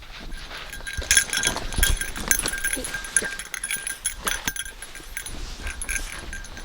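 A small dog whining and whimpering in high-pitched, drawn-out cries, with scratching and clicking of claws and movement.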